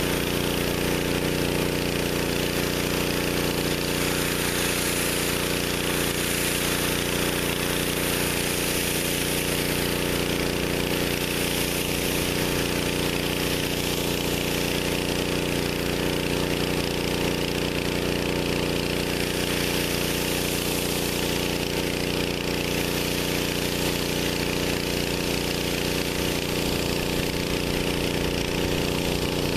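A pressure washer's engine running steadily at full throttle, under the continuous hiss of a four-jet water broom spraying the concrete.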